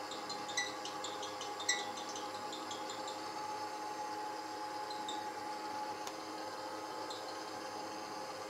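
Kenwood kMix stand mixer running steadily, its motor giving a level hum as the beater whips butter in the stainless steel bowl. A few light metallic clinks come in the first two seconds.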